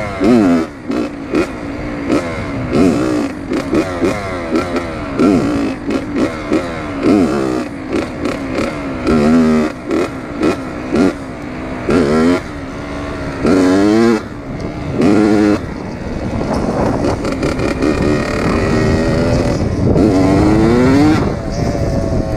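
Dirt bike engine being ridden, revving up and easing off again and again as the throttle is opened and closed.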